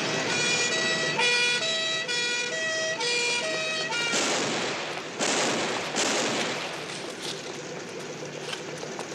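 Two-tone police car siren switching back and forth between a high and a low note, about one full cycle a second, and stopping about four seconds in. A few seconds of loud rushing noise follow, rising and falling in surges.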